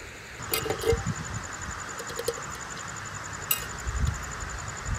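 Steady rush of a stream's flowing water, with uneven low rumbles of wind buffeting the microphone. A few sharp clicks fall early on and about three and a half seconds in, over a faint, fast, high-pitched ticking.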